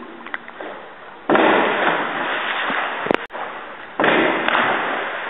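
Two loud splashes of divers hitting the water in an echoing indoor pool hall, one about a second in and the other about four seconds in, each dying away over a second or two. A sharp click comes just after three seconds.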